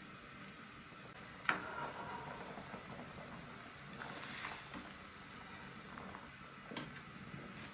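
Quiet summer outdoor ambience with a steady, high-pitched insect drone over a faint hiss. A sharp click comes about a second and a half in, and a softer one near the end.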